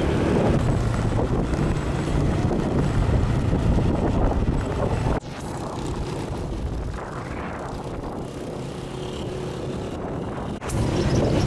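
Motorcycle riding noise: a small engine running on the road with wind rumbling on the microphone. The noise drops abruptly about five seconds in and comes back up near the end.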